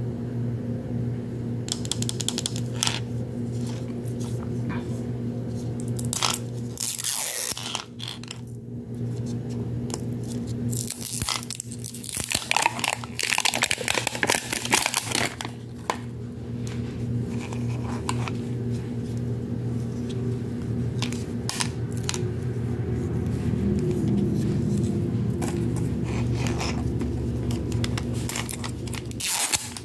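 Plastic shrink-wrap being torn and peeled off a plastic toy capsule ball, in crinkling, crackling spells that are busiest about halfway through, over a steady low background tone.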